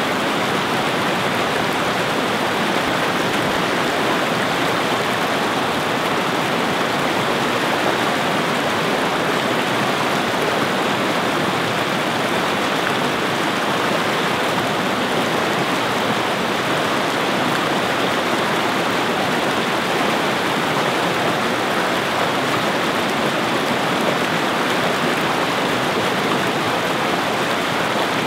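Stream water rushing steadily over low rock ledges of a small woodland cascade, a loud even rush with no change.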